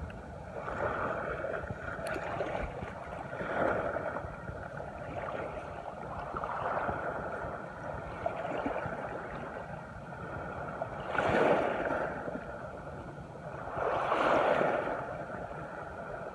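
Small waves washing in at the shoreline in slow swells a few seconds apart, the two near the end the loudest.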